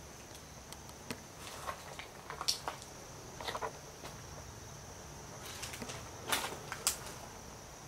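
Scattered footsteps and small crunches of debris underfoot on a littered floor, with a few sharper cracks about two and a half seconds in and again near six and a half seconds. A faint steady high-pitched whine runs underneath.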